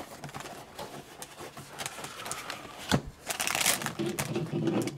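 Cardboard cereal box being opened by hand: flaps pulled and rustling, with crinkling and small clicks and one sharp crack about three seconds in.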